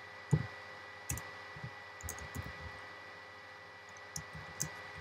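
Typing on a computer keyboard: about ten scattered, irregular keystrokes, the loudest about a third of a second in. Under them runs a faint steady high-pitched tone with hiss.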